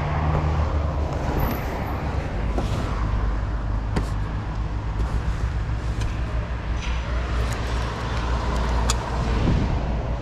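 A motor vehicle's engine running with road traffic noise, a steady low rumble, and a couple of sharp clicks.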